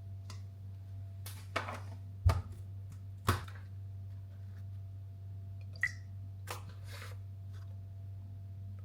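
A few scattered knocks and clatters of kitchen items being handled, the loudest two about two and three seconds in, over a steady low hum.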